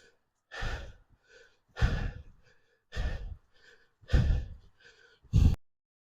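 A person breathing hard and heavily close to the microphone, with five deep breaths about a second apart, the panting of exertion while carrying gear up a steep portage trail. The sound cuts off suddenly near the end.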